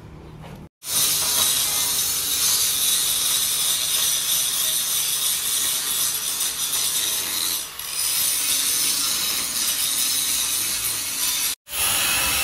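Angle grinder grinding steel: a steady, harsh grinding noise that starts abruptly about a second in, dips briefly about two-thirds of the way through, and cuts off sharply near the end.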